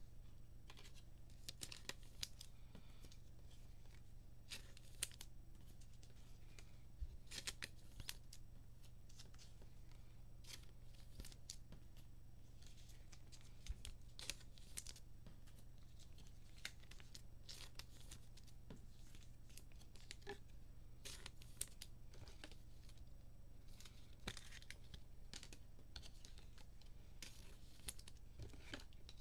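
Trading cards being slid into soft plastic sleeves and rigid plastic holders: faint, scattered rustling and scraping of plastic.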